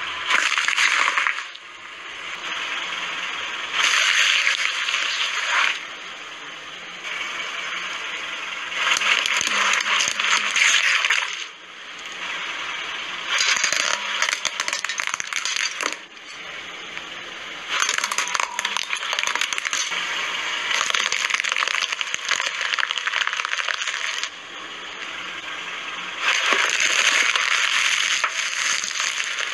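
A car tyre rolling over and crushing small objects, including an apple, plastic tiara headbands and a wrapped ice lolly. It is a string of crunching and crackling passages, each a few seconds long, that change abruptly from one to the next, thin and crackly with no deep thud.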